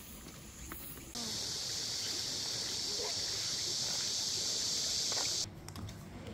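Steady high-pitched insect chorus that starts abruptly about a second in and cuts off just as abruptly about a second before the end.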